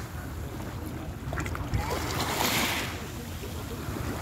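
Small waves washing onto a pebble shore, a hiss that swells and fades as a wave breaks and draws back over the stones about halfway through.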